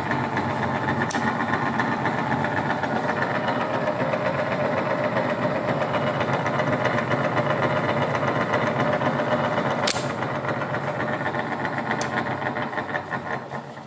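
Enco step-pulley vertical mill running, its three-phase two-speed motor driving the spindle with the quill power feed engaged: a steady mechanical whir. A sharp click about ten seconds in, after which it runs a little quieter, and it winds down near the end.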